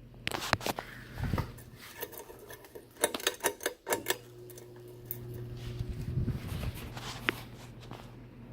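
Quorum Celtic ceiling fan running with a steady motor hum. A run of sharp clicks and rattles comes in the first half, and a single click comes near the end.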